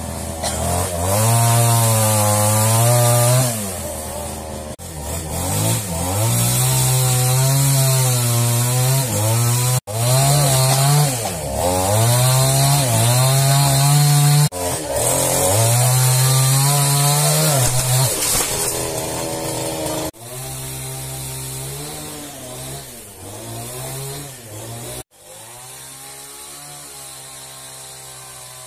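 Two-stroke chainsaw cutting through fallen timber. The engine revs up and drops in pitch again and again as the chain bites in the cuts. In the last third it runs more quietly at lower speed.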